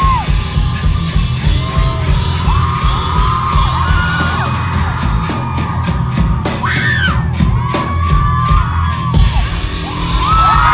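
Live rock band playing loudly through a venue sound system, with a heavy pulsing bass and drum beat. Voices yell and sing over it, with a cluster of sharp drum hits and a rising shout about two-thirds of the way through.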